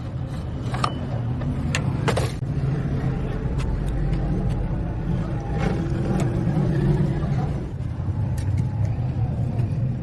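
A vehicle engine's steady low drone, louder from about two seconds in, with scattered sharp clicks and knocks over it.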